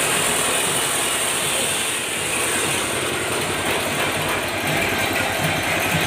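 Small petrol engine running steadily and driving a sago grating and pressing machine through a V-belt, with a low pulsing beat. The high hiss of an angle grinder on metal is mixed in.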